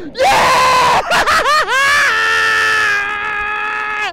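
A man yelling in excitement over a big smallmouth bass he has just landed: a shout, a quick string of short rising yells, then one long held scream that breaks off at the end.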